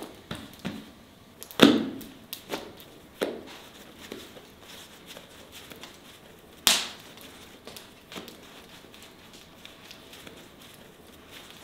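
Irregular knocks and light clatter of objects being handled. The two loudest knocks come about a second and a half in and about halfway through, with fainter taps between.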